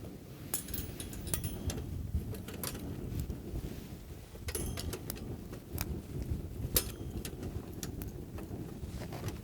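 Low steady rumble with scattered light clicks and knocks, the sharpest about two-thirds of the way through.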